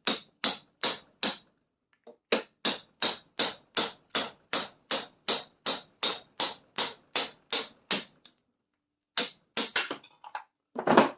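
Hammer blows on a steel punch, driving the old nylon bushing's steel ferrule out of a Triumph Spitfire trunnion. Steady, sharp metal-on-metal strikes, about three a second, with two brief pauses.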